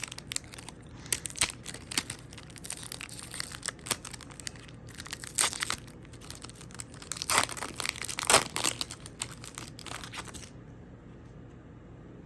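Foil Pokémon booster pack wrapper crinkling and being torn open: a run of crackles and rips, the loudest about five and a half, seven and a half and eight and a half seconds in, stopping about ten and a half seconds in.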